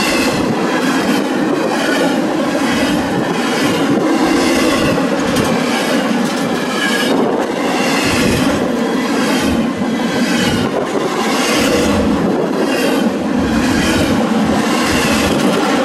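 Double-stack container well cars of a Canadian Pacific intermodal freight train rolling past close by: a steady rumble of steel wheels on rail, repeated clacks as wheelsets pass over rail joints, and a wavering squeal from the wheels.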